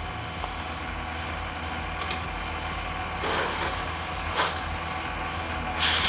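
Fishing boat's engine idling steadily, running fine after repair. A few brief noises cut across it, the loudest near the end.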